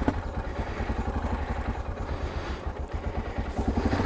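Yamaha XT660Z Ténéré's single-cylinder engine idling with a quick, uneven pulsing beat.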